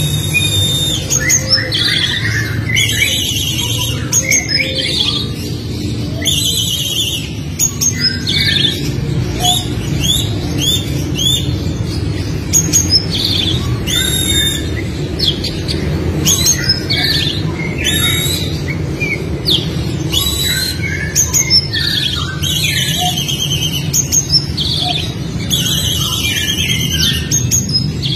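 Oriental magpie-robin (kacer) singing loudly and continuously: a varied song of short whistles, buzzy rapid trills and quick downsweeping notes, packed close together. A steady low hum runs underneath.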